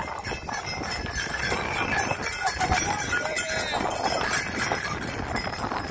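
Horses and a wooden horse-drawn cart moving close by: irregular hoof clops and knocks, with harness bells ringing now and then. A crowd is talking underneath.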